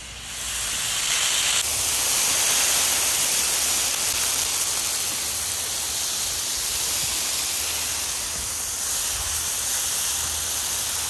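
Water squirted onto a hot Razor griddle top, flashing to steam with a loud, steady sizzling hiss that comes in suddenly just after the start. This is the water step of cleaning, loosening the baked-on grease and food residue.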